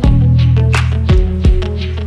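Background music with a strong bass line and drum hits.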